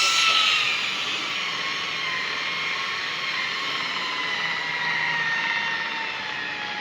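Electric rotary buffing machine running steadily while polishing compound into car paint, a high motor whine whose pitch slowly sinks over a few seconds.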